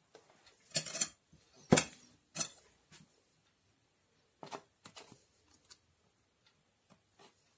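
A metal spoon knocking and scraping against a stainless steel salad ring mold, in a series of short irregular clicks and knocks, the loudest about two seconds in.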